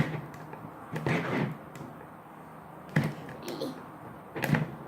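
Packaging of a squishy being handled while someone tries to open it: a few short knocks and rustles spaced a second or more apart, one sharp click about three seconds in.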